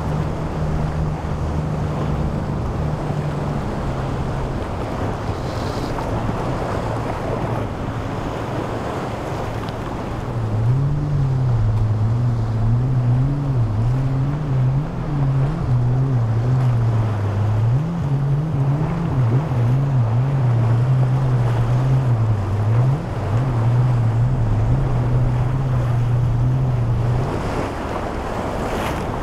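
Powerboat engines running through rough inlet water, over steady wind on the microphone and surf. One engine drone fades out in the first few seconds. A second one comes in about a third of the way through and runs until near the end, its pitch rising and falling again and again as the boat rides the waves.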